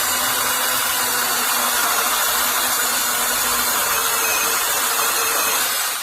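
VIWKO 6-inch brushless cordless mini chainsaw running steadily, dying away at the end.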